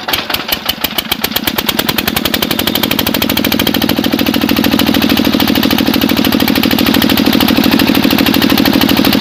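Generator engine starting up and running: a rapid chugging that quickens and grows louder over the first three seconds, then runs steadily.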